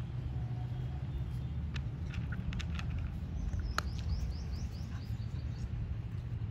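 Steady low background rumble, with a small bird giving a quick run of about eight short, high, falling chirps a little past the middle, and a few faint clicks.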